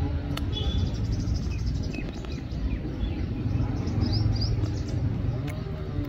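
Small birds chirping: a rapid high trill about half a second in, then scattered short tweets, over a steady low rumble of background noise.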